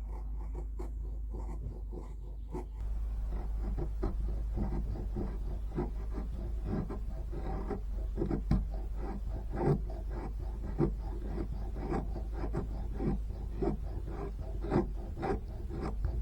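Victorinox Fieldmaster pocket knife blade shaving curls off a wooden stick to make feather sticks, in repeated scraping strokes about once a second.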